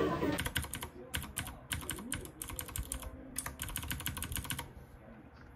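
Typing on a computer keyboard: quick runs of keystrokes with short pauses between them, stopping about four and a half seconds in.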